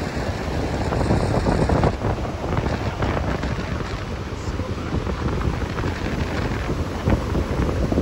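Steady rush of the Lower Falls of the Yellowstone River pouring over its brink, with wind buffeting the microphone.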